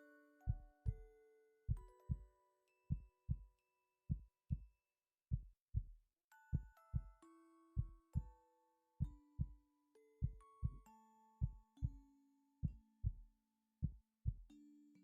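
Human heartbeat heard close up: steady paired lub-dub thumps, about one pair a second. Soft melodic background music with held notes plays over it.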